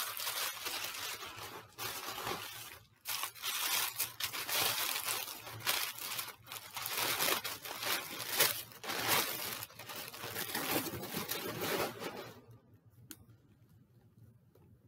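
Tissue paper crinkling and rustling as a small gift is unwrapped by hand. The noise is irregular and continuous, then stops about twelve seconds in.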